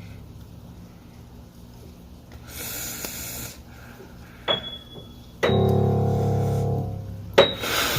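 Background piano music playing held chords in the second half, after a quieter stretch. The quiet stretch has about a second of hiss near the middle and a couple of sharp clicks.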